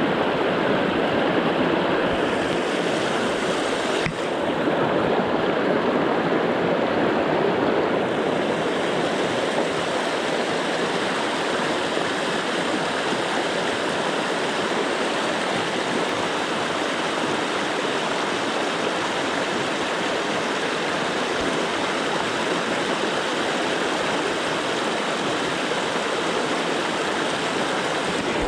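River water rushing steadily, a continuous noise with no break.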